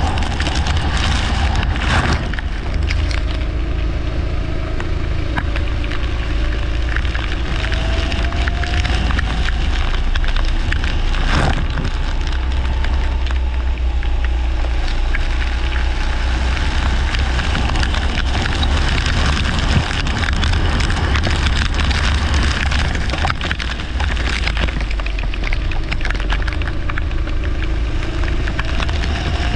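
Leisure kart engine running at race pace, its note climbing again and again as it accelerates, heard under heavy wind buffeting on an onboard microphone. A sharp knock comes about two seconds in and another about eleven seconds in.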